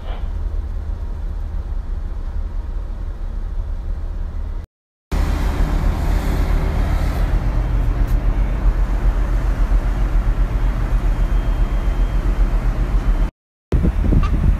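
Steady low drone of a ship's engines and machinery, broken by two short silent gaps.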